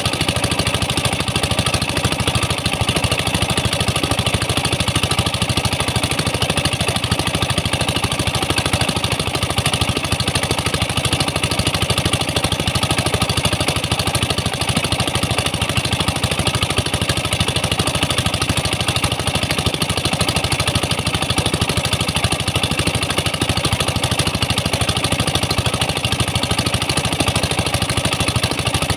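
Engine of a water pump running steadily at a constant speed, driving high-pressure hoses for hydraulic tin mining, with the hiss of water jets spraying onto the mud.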